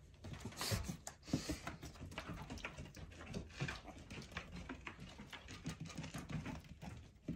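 Piglets trotting about, their small hooves tapping and pattering irregularly on the floor, with a few soft animal noises mixed in.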